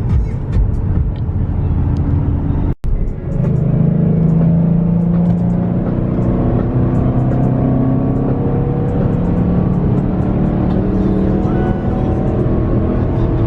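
Vehicle engine pulling under hard acceleration, its pitch rising steadily over about ten seconds after a brief cut about three seconds in.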